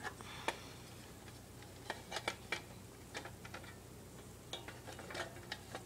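Light plastic clicks and taps as Xbox 360 console parts are handled and fitted back together by hand, a scattered handful of small knocks over a faint steady low hum.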